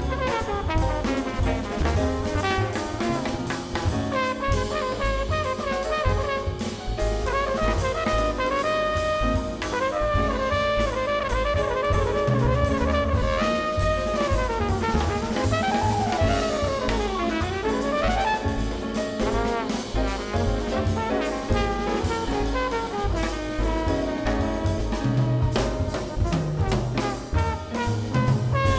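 Live jazz band playing: a brass horn solo line over a busy drum kit.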